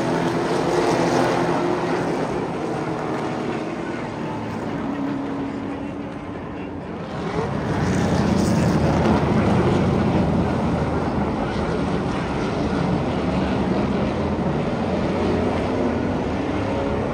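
Super late model stock cars' V8 racing engines running around an oval track. The sound dips briefly, then swells as cars come by about seven and a half seconds in, with engine pitch rising again near the end.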